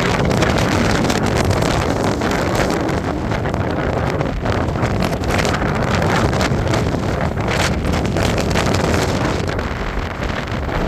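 Strong dust-storm wind rushing and buffeting the microphone in quick, irregular gusts.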